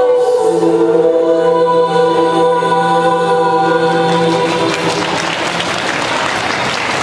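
Mixed vocal group of men and women singing through microphones, holding a long sustained chord that ends about four and a half seconds in. Audience applause takes over for the rest.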